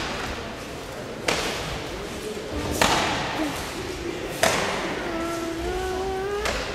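Hard strikes landing on partners' bodies in Goju-ryu karate body-conditioning (tanren), four sharp hits about one and a half seconds apart, each echoing through the hall. Between the last two hits a voice holds one long call that rises slightly in pitch.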